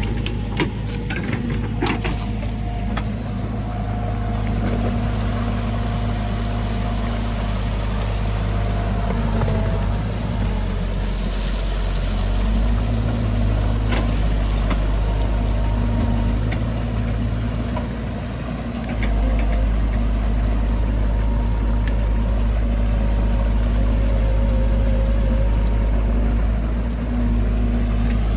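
Excavator's diesel engine running steadily over the rush of muddy water pouring through a freshly dug drainage canal. There are a few knocks near the start, and the engine gets louder about two-thirds of the way through.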